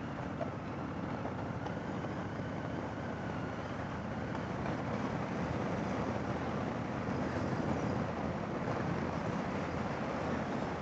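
Harley-Davidson motorcycle engine running steadily at cruising speed, with wind rushing over the microphone.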